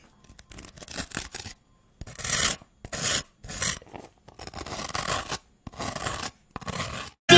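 A series of scratchy rubbing strokes, roughly one a second, each a short rasp with brief silent gaps between them.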